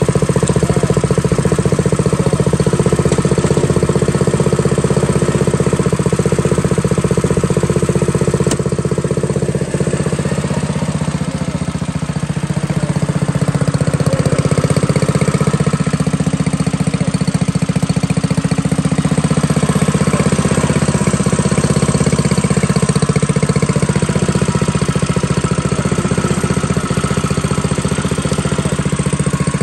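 Coleman minibike's small single-cylinder engine idling steadily.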